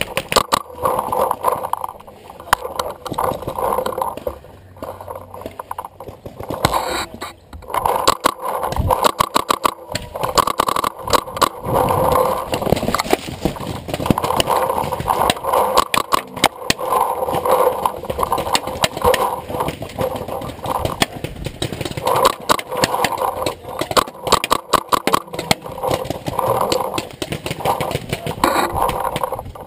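Paintball markers firing in rapid strings of sharp pops, many shots a second, in bursts throughout.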